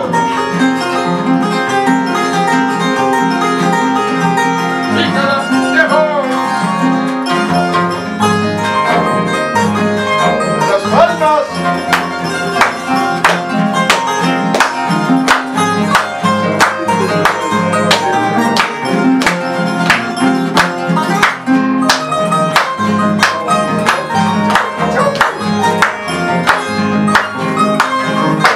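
Andean harp and acoustic guitar playing a lively tune, with voices singing in the first half. About halfway through, steady hand clapping joins in to keep the beat.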